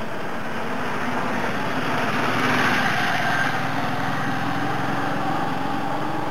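Small engine running steadily, with a slight swell about two and a half seconds in.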